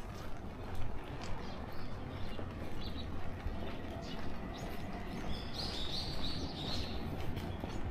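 Street ambience with a steady low hum and footsteps, and a run of high bird chirps about five to seven seconds in.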